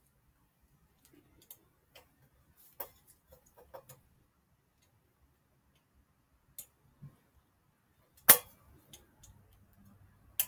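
Allen wrench clicking on a bike's pinch bolts as they are tightened: scattered light metal clicks and taps, with one sharp, much louder click a little after eight seconds and another near the end.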